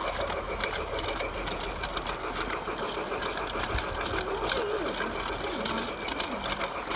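A small machine running with a steady, rapid rattle.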